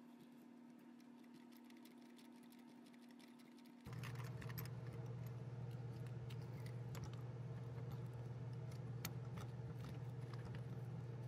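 Hand ratchet clicking irregularly as a spark plug is loosened and backed out with a socket and extension, with small metal taps and clinks of the tools. A steady low hum comes in suddenly about four seconds in and stays under the clicks.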